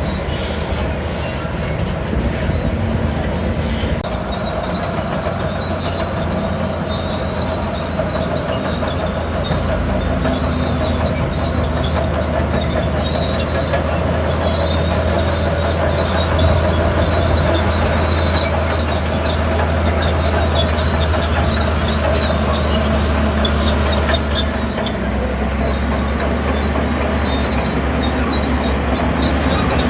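Crawler bulldozer working: its diesel engine runs steadily under a continuous squeal and clatter from the steel tracks.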